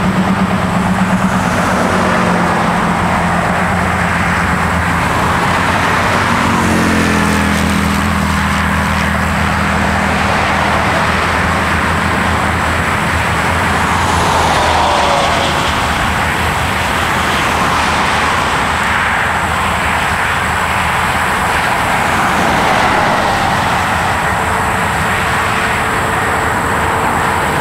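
Car driving: steady engine and road noise, with the engine note climbing about six to eight seconds in.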